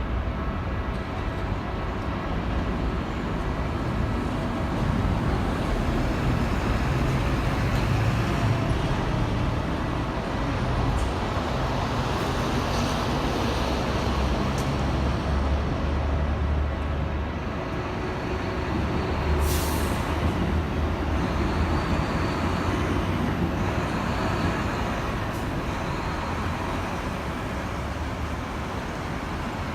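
Heavy road traffic of trucks and buses running past, with a steady low engine and tyre noise that swells and eases, and a short hiss of air brakes about two-thirds of the way through.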